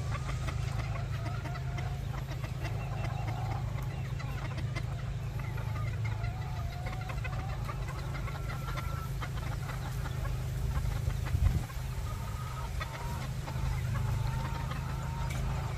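Chickens clucking and giving drawn-out, wavering calls again and again over a steady low rumble, with one brief thump about two-thirds of the way through.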